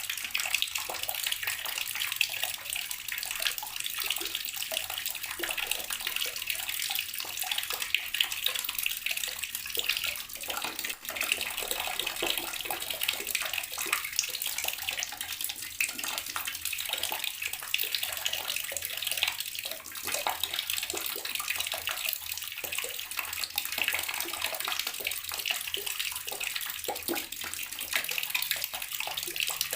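Water running steadily from a tap and splashing into water below, a continuous hissing splash with small irregular spatters.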